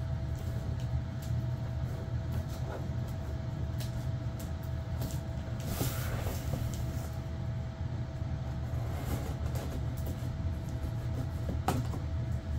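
Scissors cutting packing tape and handling the cardboard box, a few light clicks and a longer scraping sweep about halfway through, over a steady low background rumble with a faint hum.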